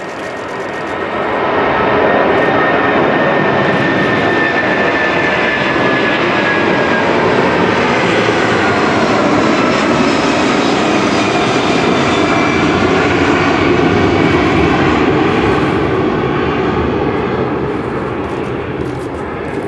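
Airbus A340-600's four Rolls-Royce Trent 500 turbofans at take-off power as the airliner climbs out overhead: loud, steady jet noise that builds over the first couple of seconds, with a whining tone that falls in pitch as it passes, easing slightly near the end.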